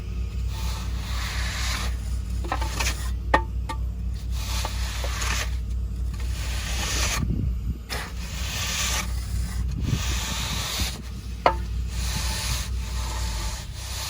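Repeated rough scraping strokes of hand tools working wet concrete, with two sharp clicks or knocks, one in the first few seconds and one near the end.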